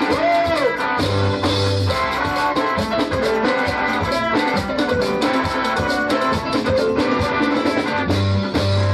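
Live band music played loud through PA speakers: a steady drum beat under guitars and other pitched instruments, with a man singing lead into a microphone. Deep bass notes come in about a second in and again near the end.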